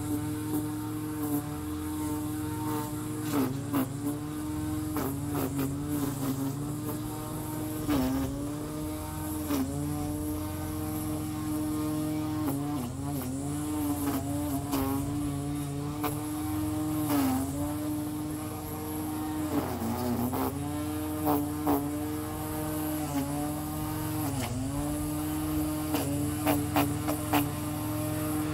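Electric grass trimmer running with a steady whine, its pitch dipping briefly every couple of seconds as it cuts into the grass, with short sharp ticks now and then.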